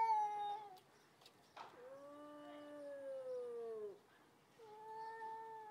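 Two stray cats yowling at each other in a threatening standoff before a fight. Three long drawn-out calls: one that trails off just after the start, a lower one in the middle, and a higher one near the end, each dropping in pitch as it ends.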